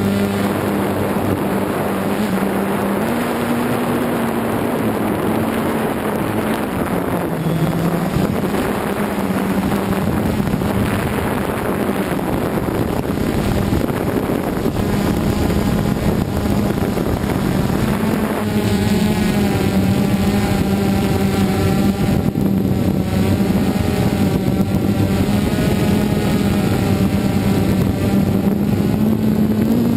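DJI Phantom 2 quadcopter's electric motors and propellers buzzing in flight, heard from on board. It is a steady hum whose pitch drifts up and down a little as the throttle changes, and a higher whine joins in about two-thirds of the way through.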